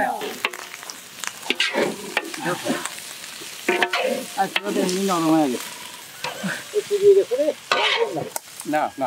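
Long metal spatula scraping and turning rice in a large iron karahi over a fire, with the rice sizzling as it fries. Repeated sharp metal-on-metal scrapes and knocks against the pan.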